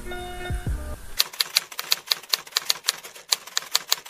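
Typewriter keystroke sound effect: a rapid, uneven run of sharp clicks, about six or seven a second, starting about a second in as a caption is typed onto the screen letter by letter. It follows a short held tone in the first second.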